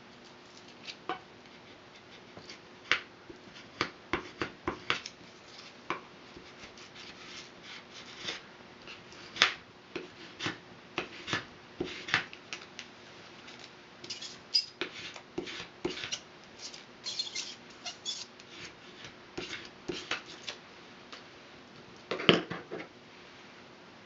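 Irregular light clicks, taps and short scrapes of a craft blade and hand tools working green barley straws on a marble cutting board, with one louder knock near the end.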